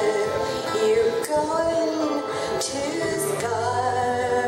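A woman singing with held notes while strumming an acoustic guitar, amplified through a microphone.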